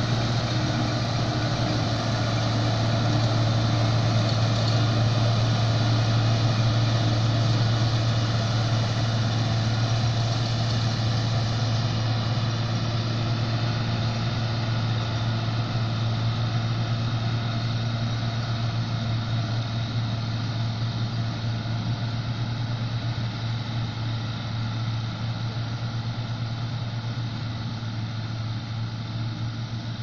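John Deere 955 combine harvester running steadily as it cuts wheat: a constant low drone of engine and threshing machinery, slowly fading over the second half as the machine moves away.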